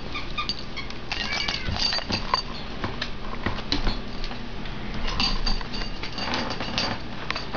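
Dog's squeaky toy squeaking repeatedly as a greyhound plays with it: many short, high squeaks, with scattered clicks and knocks.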